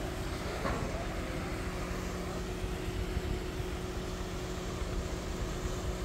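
An engine running steadily at one constant speed, a steady hum over a low rumble.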